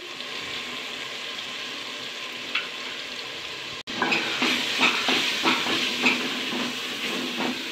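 Onion-tomato masala sizzling in oil in a metal pot, with ground spices just added. After a brief cut about four seconds in, a wooden spoon stirs and scrapes it against the pot in quick, irregular strokes over a louder sizzle.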